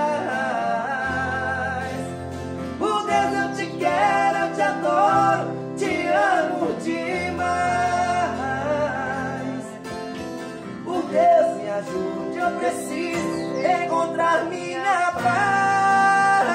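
Men singing a drawn-out melody to several acoustic guitars strummed together, with the guitars' low strings sounding under the voices.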